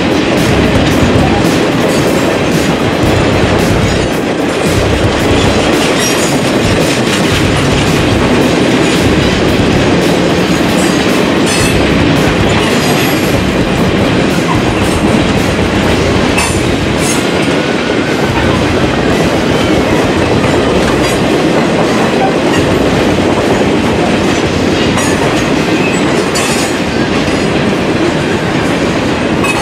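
Freight train of loaded sugarcane hopper cars rolling past at steady speed: a continuous rumble with the wheels clacking over rail joints.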